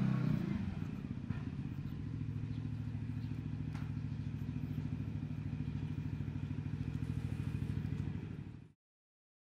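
Yamaha Aerox scooter engine running steadily with an even, fast pulse and an unchanging pitch, then cutting off suddenly near the end.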